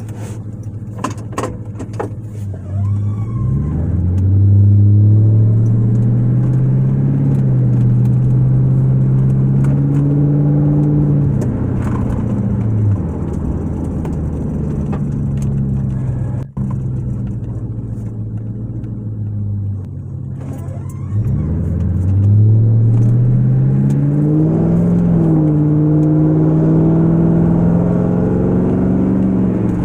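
2000 Ford Crown Victoria's 4.6-litre V8, run with no catalytic converters or mufflers, heard from inside the closed cabin while driving: it accelerates with a rising note about three seconds in, then settles into a steady low cabin drone. It eases off around thirteen seconds, then pulls again a little after twenty seconds into the same drone.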